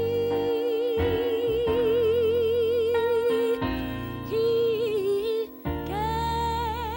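Gospel song: a singer holds long wordless notes with wide vibrato over sustained accompanying chords, moving to a higher held note near the end.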